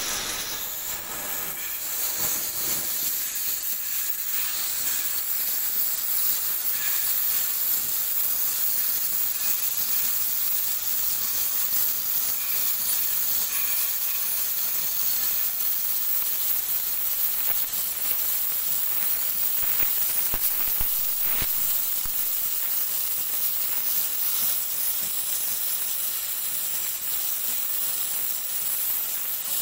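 Oxy-fuel cutting torch hissing steadily as its oxygen jet cuts through thick steel plate.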